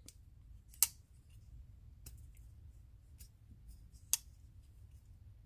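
Ontario RAT Model 1 folding knife being worked open and shut. The blade snaps into place with two sharp clicks, about a second in and again about four seconds in, with a few faint ticks between.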